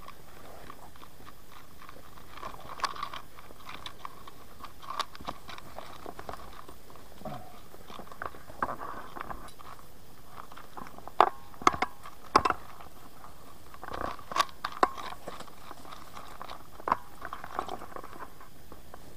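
Irregular crunching and crackling of twigs, leaves and undergrowth as hikers scramble through dense, wet forest vegetation. A few sharper snaps come about eleven to twelve seconds in and again around fourteen seconds.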